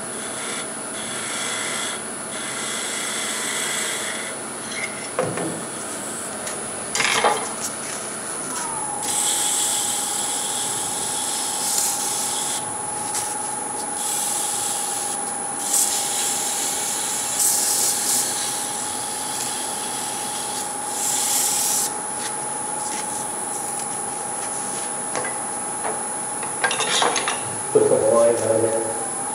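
Wood rubbing and rasping against a tool or abrasive on a spinning wood lathe, in uneven passes. A steady whine sets in about eight seconds in after a short drop in pitch.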